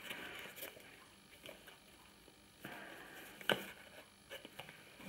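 Handling of a small cardboard box: faint rubbing and scraping of fingers on the box, with a sharp click about three and a half seconds in and a few light taps after it.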